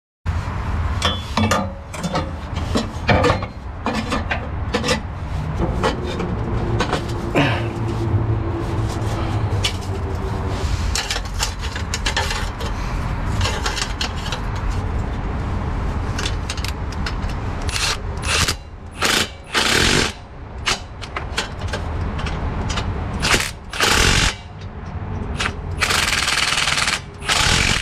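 Metal knocks and clanks as a steel exhaust pipe and band clamp are fitted under a Jeep, then a cordless impact tool hammering the clamp bolt tight in several bursts in the second half, the longest near the end.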